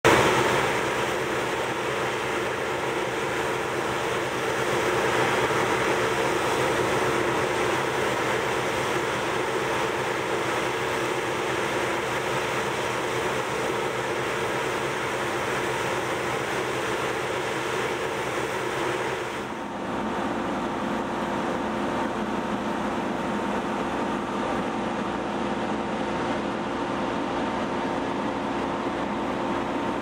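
Claas Lexion 670 combine harvester running steadily, its engine and threshing machinery giving a dense hum with steady tones, while its unloading auger empties barley into a trailer. About two-thirds of the way through the sound shifts abruptly to a lower, deeper mix.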